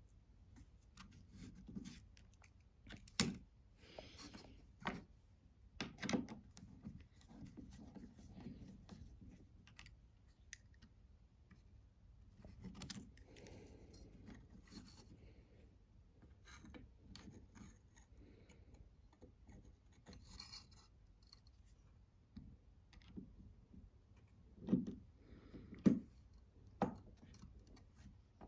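Small metal knife parts and hand tools handled on a wooden workbench: scattered light clicks, taps and scraping, with a few sharper taps near the end.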